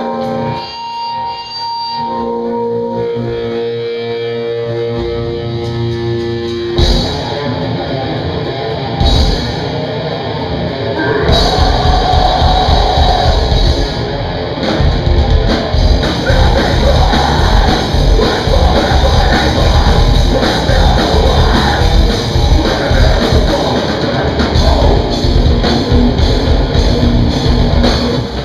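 Live heavy metal band playing a song's opening: electric guitar holds sustained notes for about seven seconds, the band strikes two accented hits, then the full band with drums comes in about eleven seconds in and plays on.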